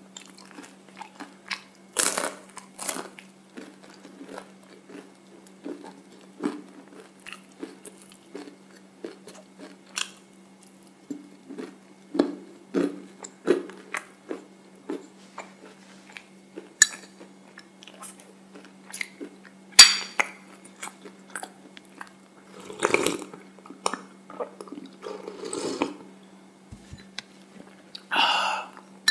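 Close-miked chewing of a crisp waffle cone: irregular crunches and small crackles, with a few louder sharp cracks, over a faint steady low hum.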